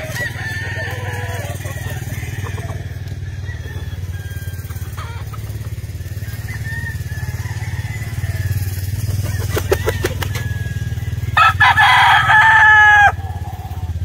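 A gamefowl rooster crows once, loud, for about a second and a half near the end, with fainter bird calls earlier and a steady low hum underneath.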